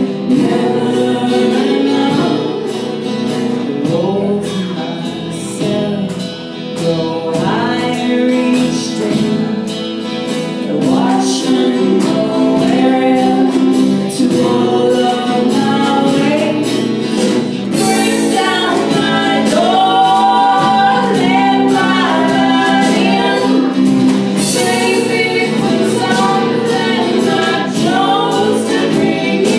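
Live acoustic band playing a song: strummed acoustic guitars under women's voices singing the melody together.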